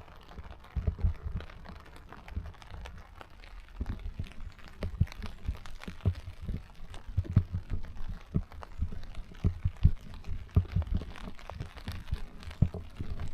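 Rain drops striking a tent flysheet, heard from inside as many irregular dull thuds with sharper taps among them.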